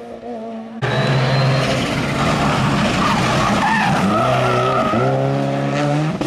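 A Subaru Impreza rally car's turbocharged flat-four engine passing at full race speed. It starts suddenly about a second in, then the pitch drops and climbs again with each gear change as the car accelerates away. Before that, another rally car fades into the distance.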